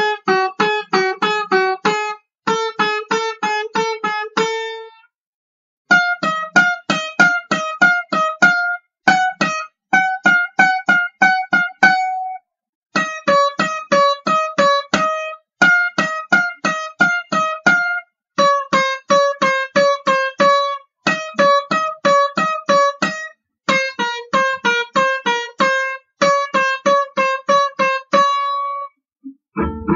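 Instrumental country music on a plucked banjo: a melody of quick single notes in short phrases, each phrase ending in a brief pause.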